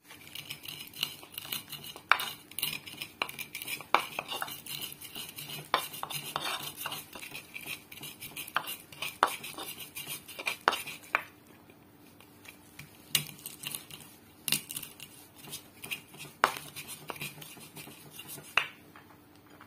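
Stone pestle grinding coriander seeds and candlenuts against a clay mortar (Indonesian cobek and ulekan): a gritty scraping broken by many irregular sharp clicks and knocks. These grow sparser about halfway through.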